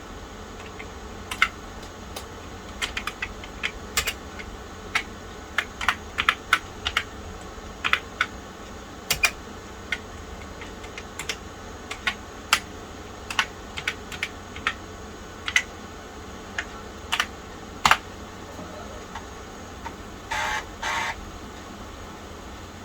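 Keys being typed on the Tandy 1000 EX's built-in keyboard, in uneven runs of single clicks. Near the end come two short buzzy bursts, each about half a second.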